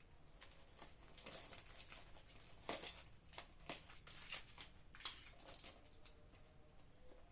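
Scattered light clicks and rustling from small parts and their packaging being handled. The sharpest clicks come about three seconds in and again about five seconds in.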